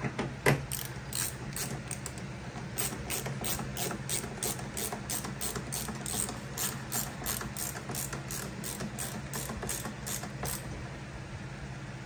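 Ratcheting hand screwdriver clicking in quick, even runs, about three clicks a second, as screws are driven into a washing machine's panel; a short pause about two seconds in, and the clicking stops near the end.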